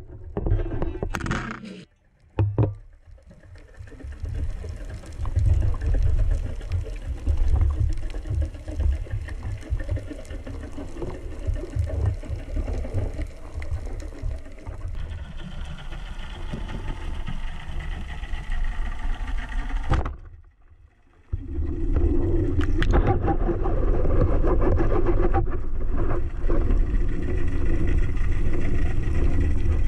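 Muffled underwater rumble and water rushing past a camera housing held by a moving spearfisher, with two brief drops to near silence, about two seconds in and again about twenty seconds in.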